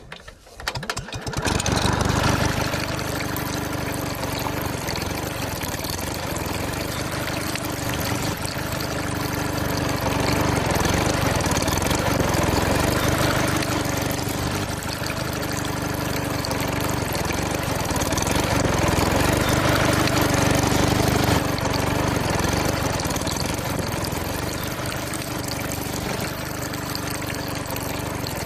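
A small motor starts about half a second in and runs steadily, driving a water pump, with water splashing along with it; its level slowly swells and eases.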